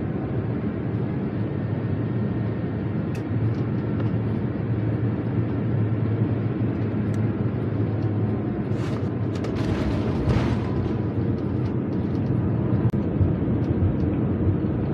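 Steady rumble of engine and rolling noise inside an Airbus A350 airliner's cabin as it moves along the ground at the airport. Near the middle, a short hissing, rattling burst sits on top of the rumble.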